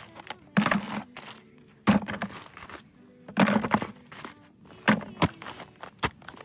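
Irregular thuds and crunches on frozen snow and lumps of coal, about six sharp knocks roughly a second apart, as lumps frozen into the ground are knocked at to break them loose.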